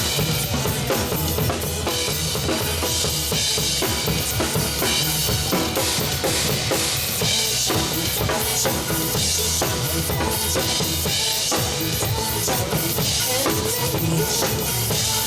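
Instrumental break of a pop song: a drum kit with bass drum and snare keeping a steady beat under the band's backing music.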